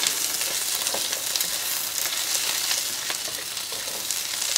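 Sliced red onions sizzling steadily in hot oil in a wok. A spatula stirs them, giving occasional light scrapes and taps against the pan.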